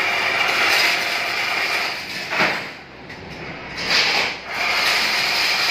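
Automatic chain link fence machine weaving wire mesh: a loud rasping of wire being fed and twisted through the mesh, in long stretches broken by short sharp bursts, in a repeating working cycle.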